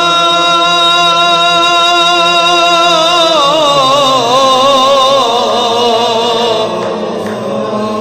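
Sufi devotional chant: a single voice holds a long, steady sung note. About three seconds in, the note breaks into a wavering, ornamented run that winds downward in pitch and fades near the end.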